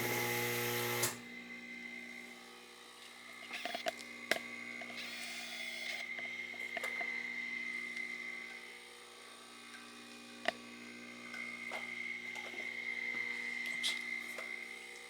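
Steady electrical hum from the phase converter powering the lathe's GE DC drive, with a steady high whine over it and scattered light clicks. In the first second a louder hum cuts off abruptly.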